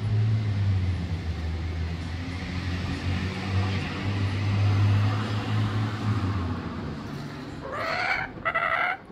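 A steady low hum with a wash of city traffic noise, then near the end two short rising calls from a laughing kookaburra.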